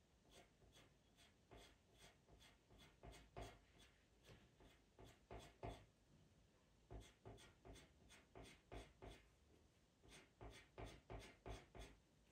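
Faint scratching of a pastel pencil on Pastelmat pastel paper, drawn in quick short strokes (about two or three a second) to lay in fur, with brief pauses between runs.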